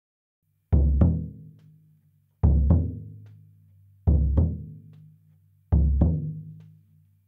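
Song intro beat on a deep drum: four double strikes, each pair a quick one-two like a heartbeat, about a second and a half apart, each ringing out and fading. A low held tone sounds underneath.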